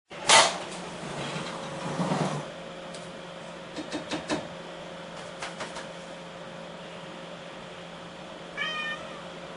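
A cat gives one short meow near the end, after a loud sharp knock at the start and a few lighter clicks and rustles, over a steady low hum.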